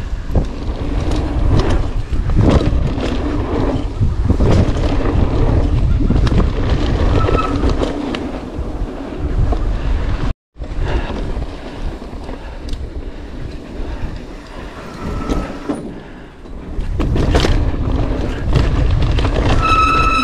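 Mountain bike being ridden fast down a rough dirt trail: wind buffeting the microphone, tyre rumble and frequent knocks and rattles of the bike over bumps. Short high squeals come now and then, the clearest near the end, and the sound cuts out for a moment about halfway.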